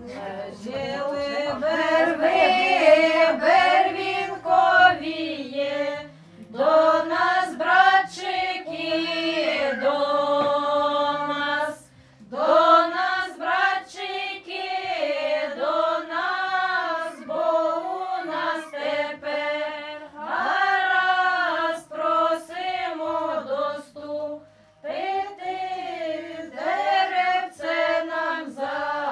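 A group of women singing a traditional Ukrainian wedding ritual song unaccompanied, in phrases of about six seconds with short breaks between them.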